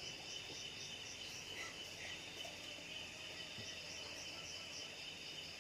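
Night insect chorus of crickets: a steady high trill with a faint, evenly pulsing chirp above it.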